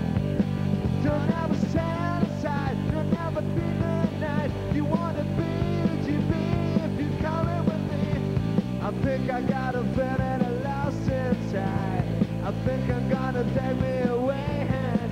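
A live rock band plays a song: electric guitar, bass guitar and drums with cymbals, and a male voice singing. The low bass part changes about halfway through.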